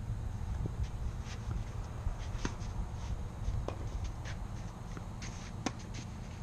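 Scattered short clicks and taps of tennis play, with the ball bouncing and shoes scuffing on the court, and one sharper knock a little before the end, over a steady low wind rumble on the microphone.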